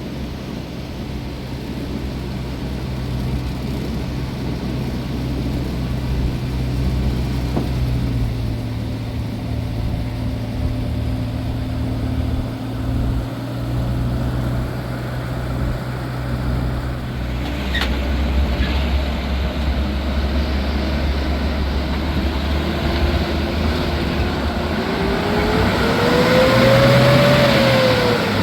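A motor vehicle's engine running steadily, rising in pitch and loudness toward the end and then dropping away.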